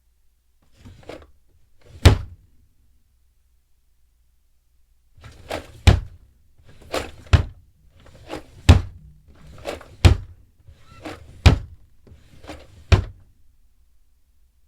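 Wooden drawer slid and slammed shut, then opened and slammed six times in quick succession, about one slam every second and a half. Each sharp slam follows the rumble of the drawer running on its slides.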